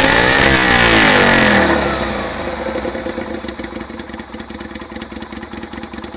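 Yamaha XV125 Virago's small air-cooled V-twin, on drag pipes with a homemade silencer, being revved up and down, then dropping back to a steady, quieter idle about two seconds in.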